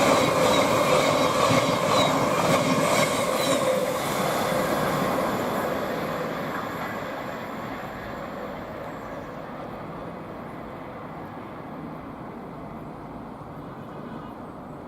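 Class 700 electric multiple unit running past on the rails, loud at first with a steady tone and a few ticks, then fading away over several seconds as it draws off.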